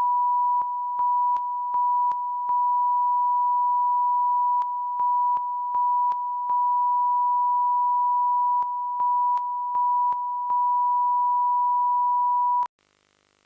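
A steady pure electronic test tone, the kind a TV channel plays after signing off the air. It stutters now and then in clusters of short dips, each with a small click, and cuts off suddenly about a second before the end.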